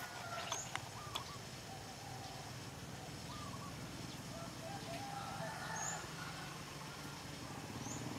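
Birds calling off and on in the open air, with a few faint clicks about a second in and a low engine hum building near the end.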